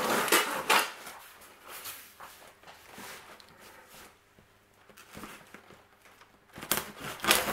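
Parcel packaging being torn and rustled open by hand: loud tearing and crackling in the first second and again near the end, with quieter rustles and scrapes between.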